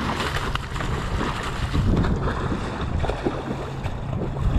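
Wind buffeting the microphone outdoors: a steady low rumble with a rustling hiss over it.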